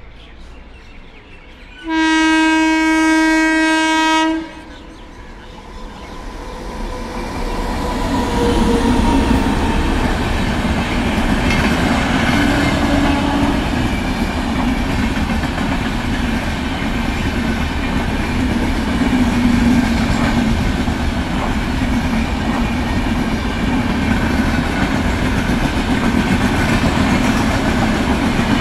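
A locomotive horn sounds one long blast about two seconds in. Then the Vivek Superfast Express runs through the station at speed without stopping, its LHB coaches passing in a loud, steady rumble with clatter from the wheels on the rails.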